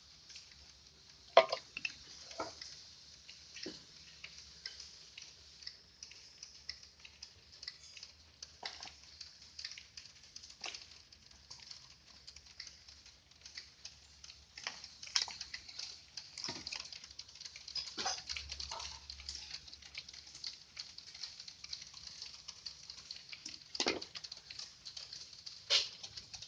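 Scattered light clicks, taps and knocks of kitchen utensils and containers being handled during food preparation, a sharper knock about a second and a half in, over a steady faint hiss.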